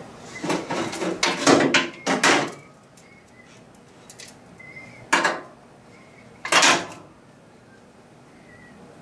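Clunking and scraping of hands and tools working in a car's engine bay: a run of handling noises in the first two and a half seconds, then two more single ones about five and six and a half seconds in.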